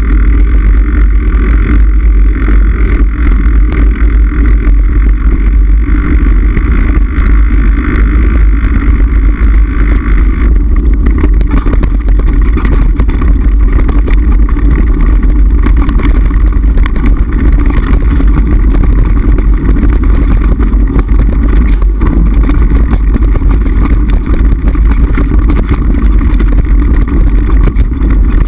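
Mountain bike ridden fast over a rough stony track, heard through a handlebar-mounted GoPro: a loud, steady rumble of wind on the microphone, with constant rattling and knocking as the bike and mount jolt over the stones, and one sharper knock about two-thirds of the way in.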